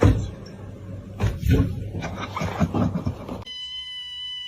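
A can of pet food being opened: a sharp knock, then irregular clicking and scraping. A steady high-pitched tone with several overtones starts near the end.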